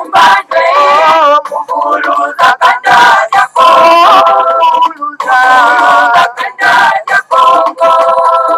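A song playing: singing voices with music, in phrases with wavering pitch.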